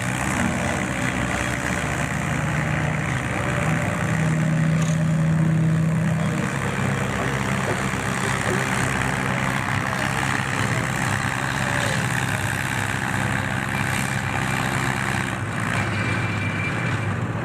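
Antique tractor engine running steadily under load while pulling a sled, swelling a little louder about four to six seconds in.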